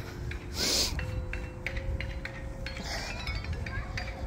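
Playground sounds: a child's shout about half a second in, then light metallic clinks and a held ringing metal tone.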